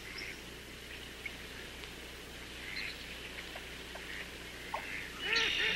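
Wild birds calling: scattered short chirps and calls over faint steady background noise, with a louder run of calls near the end.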